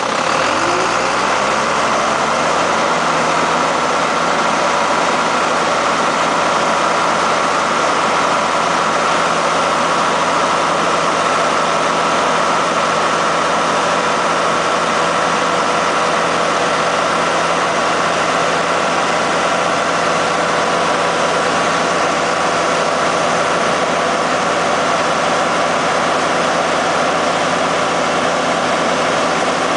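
Heavy diesel engine speeding up in the first second or two, then running steadily with a high steady whine over it.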